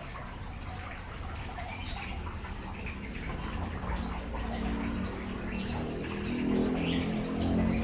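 Steady running water splashing and dripping, as from the outlet of a Sakkai Pro ACT 5000 submersible pond pump pouring back into the pond, with a low hum beneath and a tonal hum that swells in the second half.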